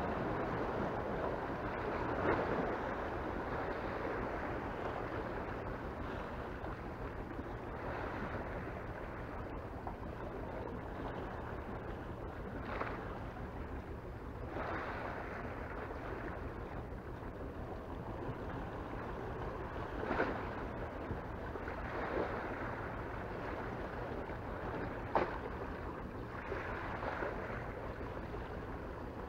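Sea waves washing and splashing against a rock sea embankment, with a few sharper splashes. A steady low hum runs beneath.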